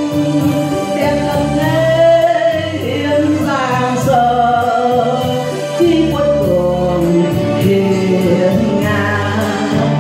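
A woman singing a Vietnamese ballad into a microphone over backing music, holding long notes with vibrato.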